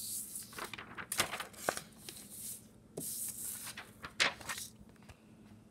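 Rustling and scraping from handling, with a few sharp knocks and taps, the loudest about four seconds in.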